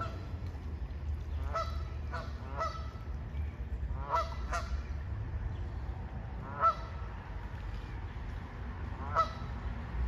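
Waterfowl calling: about eight short, pitched calls spaced irregularly, with the loudest two about two-thirds of the way in and near the end, over a steady low rumble.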